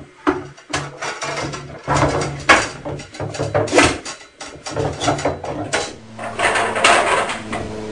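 Copper tubing being handled and worked into a coil: a busy run of knocks and metallic clatter against wood, over a low steady hum.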